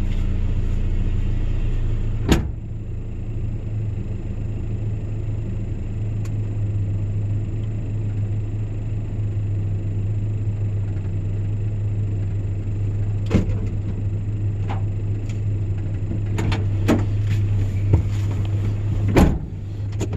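Vehicle engine idling steadily. About two seconds in there is a sharp thud like a door shutting, after which the sound is quieter. Scattered knocks and clunks come later, and a louder thud near the end.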